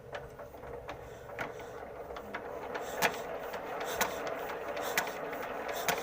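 Diesel fuel injector nozzle of a Kamco 120 DI power tiller being tested outside the cylinder to check its spray: a sharp crack about once a second over a steady hum that slowly grows louder.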